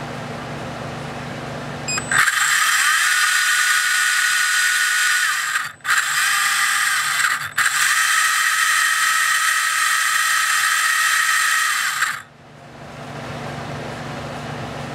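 ORCA Blitreme 3 brushless RC motor spinning under load through a 29-tooth pinion and spur gear, driven by a motor analyzer's automatic test run. A loud gear whine starts about two seconds in, cuts out briefly twice, and stops about twelve seconds in.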